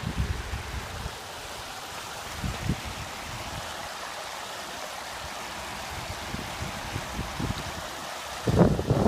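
Floodwater rushing steadily, with a few low rumbles on the microphone, the loudest near the end.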